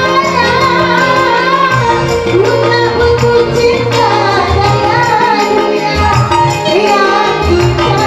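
Music with a woman singing a melody over held bass notes.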